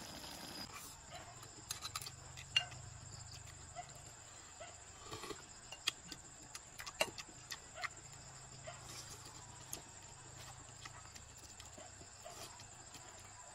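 Eating sounds: a metal spoon clinking against a ceramic bowl and scattered small clicks of chopsticks, with chewing and lip smacks.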